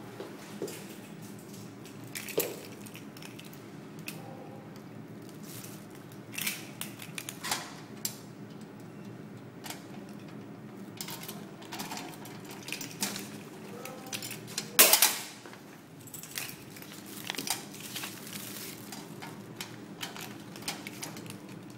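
Metal clicks and clinks of a key working the lock and small hinged door of a brass post office box, with paper mail rustling. One sharp clank about two-thirds of the way through is the loudest sound.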